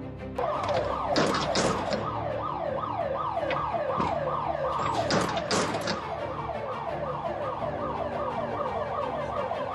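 Electronic warning alarm of an automated vehicle net barrier, a falling tone repeated about three times a second while the barrier moves. A few sharp clanks sound among the sweeps, over faint background music.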